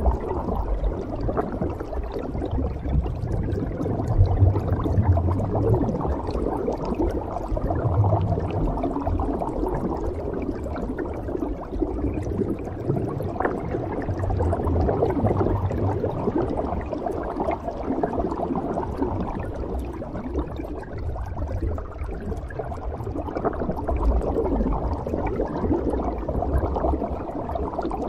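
Underwater scuba sound: a steady muffled rush of regulator breathing and exhaled bubbles, with louder bubbling stretches now and then.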